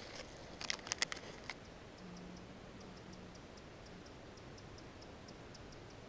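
Plastic snack-bar wrapper crinkling and crackling as it is torn open, a quick run of sharp crackles in the first second and a half. After that, a faint, even high ticking about five times a second carries on.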